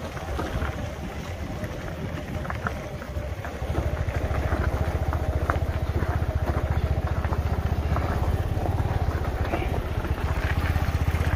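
Motor scooter engine running with a fast, even low pulse, getting louder and steadier about four seconds in.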